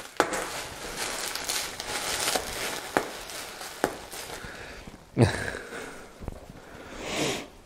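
Plastic bubble wrap crinkling and rustling as a gloved hand rummages through a pile of it, with a couple of sharp clicks. A short, louder sound about five seconds in.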